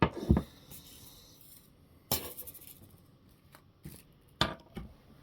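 Several separate sharp clicks and light clatter of small hard tools and parts being moved and handled on a workbench, spread out over a few seconds with quiet between them.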